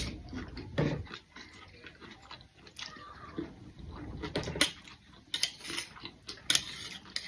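People eating fast: spoons clinking and scraping on plates, several sharp clinks about halfway through, with chewing and breathing.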